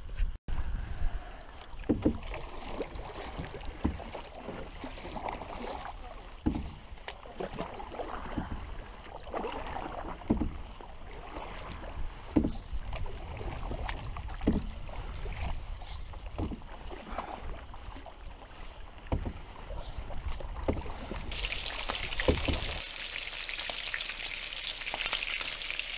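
A canoe being paddled: a low rumble with the splash and knock of a paddle stroke every second or two. About 21 seconds in, it changes to speckled trout fillets sizzling in hot oil in a frying pan.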